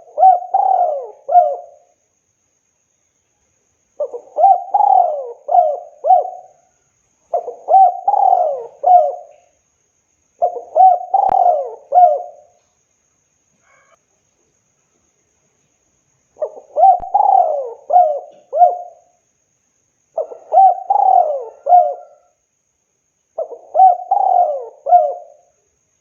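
Spotted dove (tekukur) cooing: the same multi-note phrase repeated seven times, one every three to four seconds, with a longer pause about halfway through.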